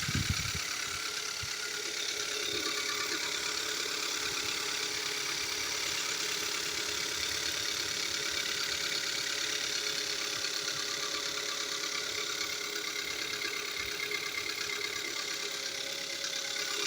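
2015 Kia Soul's four-cylinder engine running steadily at idle, with a light ticking. The ticking was later found to be the pistons slapping against the cylinder walls and scoring them.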